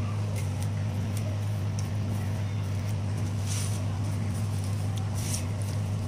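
A steady low electrical-sounding hum, with faint scratchy tearing and clicks as dry coconut husk fibres are pulled off by hand.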